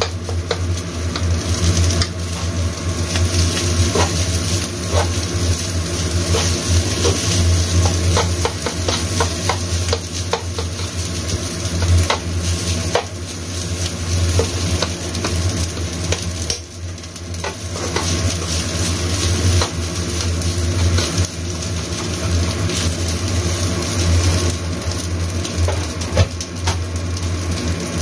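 Rice sizzling in a hot nonstick wok on an induction cooker as it is stir-fried, with frequent small clicks and scrapes of the spatula turning it against the pan, over a steady low hum.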